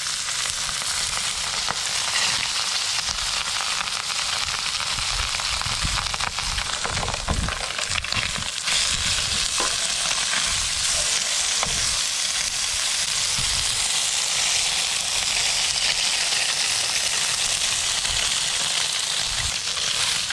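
Mullet fillets frying in hot oil in a pan: a steady, dense sizzle, with a few low rumbles around the middle.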